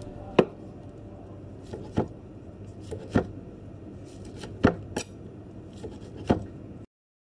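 Sushi knife slicing through a maki roll and tapping down on a plastic cutting board: seven sharp taps at uneven intervals, roughly one a second, over a steady low background hum.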